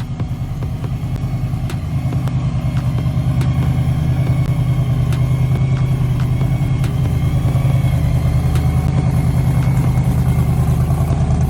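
Engine of a 1973 Chevy Impala donk running at a lumpy idle with an even pulsing beat. It gets louder about two seconds in and then holds steady.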